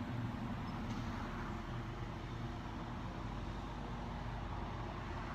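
Steady background rumble with a low hum underneath, unchanging throughout.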